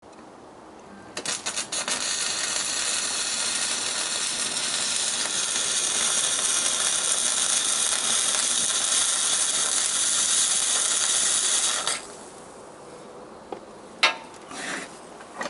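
Battery-powered wire-feed (MIG) welding arc: a few brief sputtering starts about a second in, then a steady hiss for about ten seconds that cuts off suddenly. A couple of seconds later there is a sharp knock and a few small clicks.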